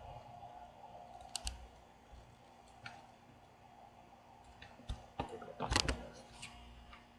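Scattered clicks of a computer mouse and keyboard, a few seconds apart, with a quick cluster of key presses near the end, over a faint steady hum.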